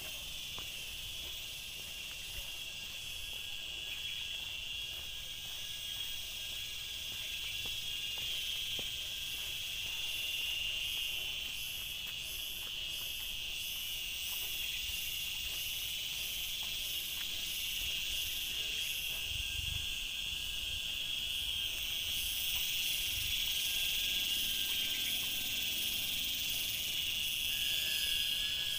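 Chorus of tropical forest insects: a steady, high-pitched buzz with a regular pulsing rasp above it, about two pulses a second. The chorus grows louder about two-thirds of the way through.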